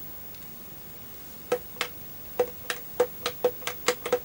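A run of sharp clicks while a gamepad is tried out on an Amiga, starting about a second and a half in and coming faster toward the end, each click with a brief ringing tone.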